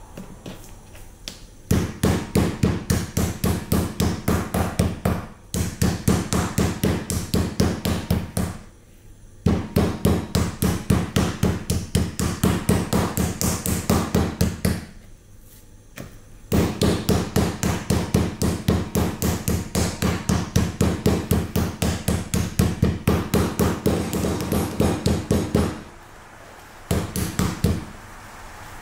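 Meat-tenderizer mallet pounding raw pork cutlets on a wooden cutting board: rapid strikes, about five a second, in several long runs with short pauses between them, to tenderize and flatten the meat.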